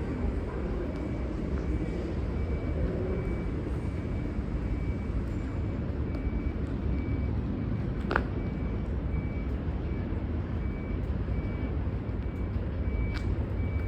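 V/Line VLocity diesel railcars running steadily at the platform, a constant low engine rumble, with a high electronic beep repeating about twice a second. A brief rising squeal comes about eight seconds in.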